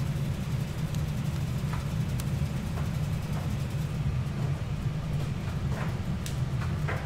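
A steady low hum with a few faint, scattered clicks.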